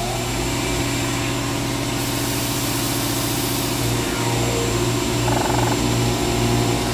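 Motor-driven machine running at a steady speed: a loud, even hum with a strong low buzz and several steady tones above it.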